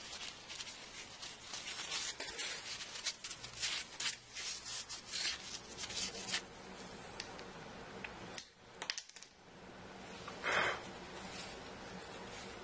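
Scratchy rubbing and handling noises as a smartphone is worked on by hand during a screen replacement. The noises are dense for the first six seconds, then come a few light clicks and a short louder rasp near the end.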